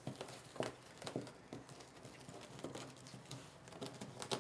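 Faint rustling and scattered soft crackles of polyester-polypropylene fabric mesh being smoothed flat by hand and gathered up through the middle into a ruffle.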